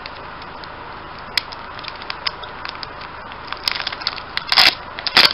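Foil Pokémon TCG booster pack wrapper being crinkled and torn open by hand: scattered small crackles at first, turning into louder, denser crackling about four seconds in.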